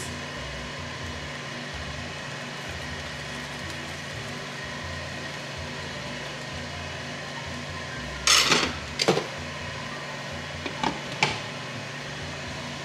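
Steady fan hum of a countertop indoor grill running on its grill setting. Over it come a few short clatters and scrapes of a spoon against a pan as rice is stirred, the loudest about eight seconds in.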